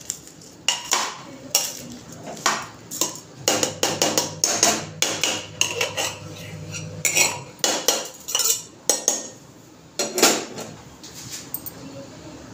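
Steel spoon stirring raw rice in a pressure cooker, scraping and knocking against the pot in repeated, irregular metallic clinks.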